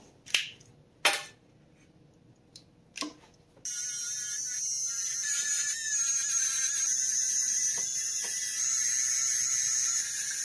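A few sharp taps and clicks, then a small high-speed rotary tool switches on about three and a half seconds in and runs with a steady high-pitched whine on a small silver piece.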